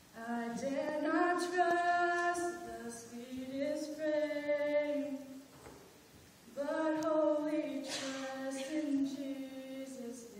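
A woman singing solo and unaccompanied into a microphone: slow, long-held notes in sustained phrases, with a short breath pause a little past the middle.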